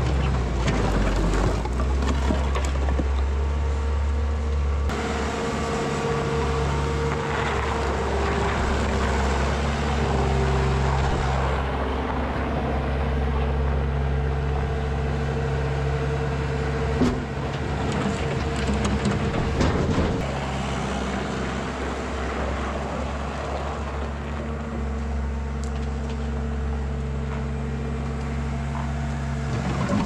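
Diesel engines of heavy construction equipment running steadily, the engine note shifting now and then, with a couple of short knocks a little after halfway.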